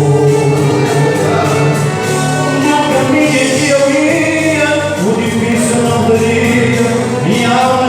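Church worship group performing a gospel song: several voices singing together over a band with a bass line, the bass moving to new notes about five seconds in and again near the end.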